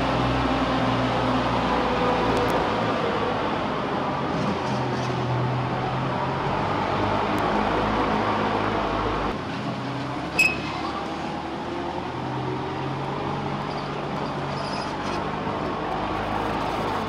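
Steady urban traffic noise with the hum of vehicle engines, its low hum easing about nine seconds in. A single sharp click about ten seconds in.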